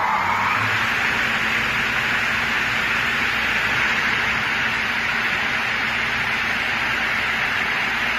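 Multi-blade log rip saw running, a loud, steady rushing noise with no let-up.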